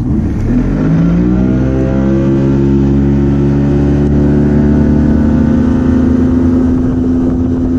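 Bass boat's outboard motor throttling up, its pitch rising over the first two seconds, then running steady at high speed.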